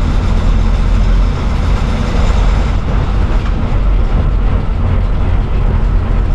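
Diesel engine of a TNSTC bus running steadily as the bus drives, heard from inside the front of the cabin: a loud, even low hum with road and body noise over it.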